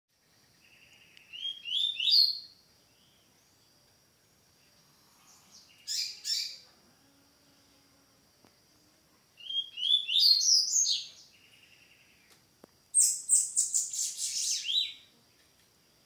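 Caged songbird singing a clean 'tui tui' song: four short phrases of quick rising whistled notes, separated by pauses of a couple of seconds. The last phrase opens with a fast run of buzzy notes.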